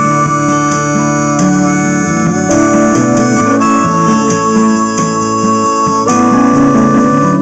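Instrumental break in a recorded pop-rock song, with no singing: held keyboard chords that change about every second, with guitar underneath.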